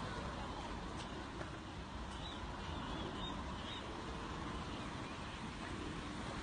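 Steady rushing background noise with a few faint, high bird chirps, about four short calls close together, between two and four seconds in.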